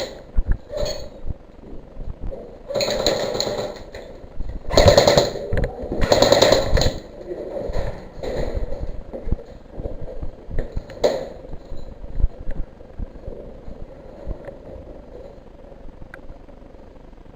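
Airsoft guns firing several rapid full-auto bursts, the loudest about five to seven seconds in, then one sharp crack near the middle, followed by a quieter stretch with a few faint ticks.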